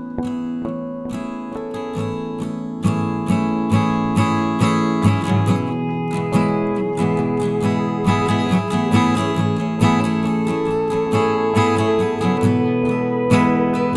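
Background music led by a strummed acoustic guitar, growing slightly louder about three seconds in.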